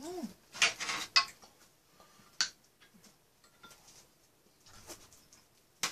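Metal spoon and chopsticks clinking and tapping against dishes while eating. There is a quick cluster of clicks about a second in, a single sharp click around two and a half seconds, and another near the end.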